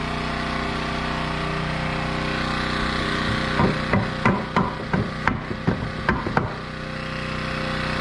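A hammer driving into wood framing: about a dozen quick blows over some three seconds, starting about three and a half seconds in. A steady engine-like drone runs underneath.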